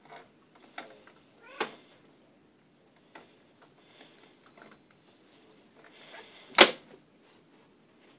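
A tabby cat and a bloodhound puppy scuffling on a carpeted cat tree: a few short cat cries and scattered taps, with one sharp knock about six and a half seconds in, the loudest sound.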